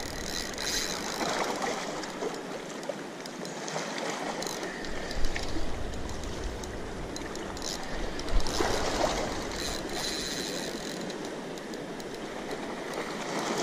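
Steady rush of river water below a dam spillway, with a few faint clicks and knocks from a spinning reel being cranked against a heavy fish.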